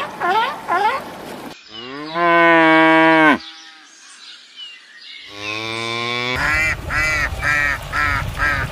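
A cow mooing: one long, steady moo, then a second moo a couple of seconds later. Before and after, short repeated honking calls of waterfowl, ending in a quick run of them near the end.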